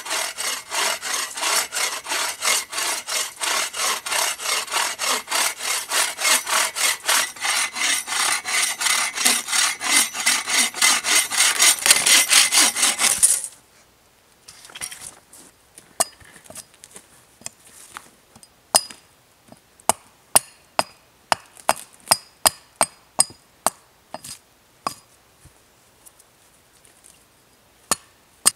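Folding hand saw cutting through a wooden pole in quick, even back-and-forth strokes that stop abruptly about halfway through. After that comes a scattered series of sharp, short wooden knocks.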